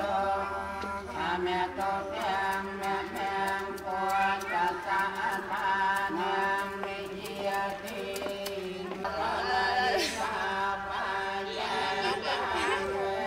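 Buddhist prayer chanting by several voices together, held in long drawn-out tones, with a sharp click about ten seconds in.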